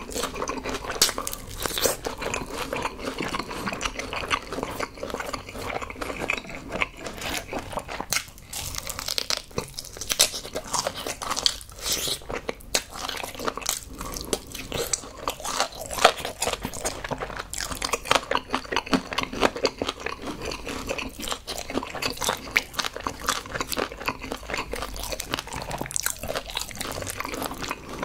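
Close-miked eating of Kyochon Honey Combo fried chicken: repeated crunching bites through the crisp, honey-glazed coating and steady chewing of the meat, with many sharp crackles throughout.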